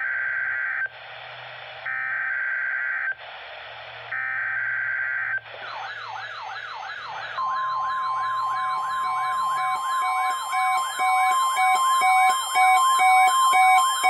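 NOAA Weather Radio Required Weekly Test signalling: three buzzy bursts of the SAME digital data header, about a second each with short gaps between. Then siren-like warbling alerts from weather radio receivers start. From about seven seconds in, the steady 1050 Hz warning alarm tone joins, with beeping alerts that grow louder near the end.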